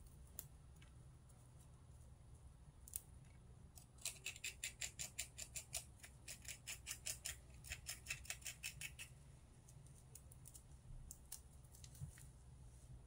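A small paring knife scraping and trimming the roots of shepherd's purse. A run of quick, crisp strokes comes about four seconds in, roughly five a second for about five seconds, with a few scattered clicks before and after.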